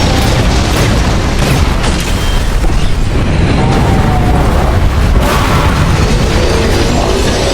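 Layered action sound effects: a dense, loud low rumble with repeated booms and explosion blasts, a few sharp hits standing out.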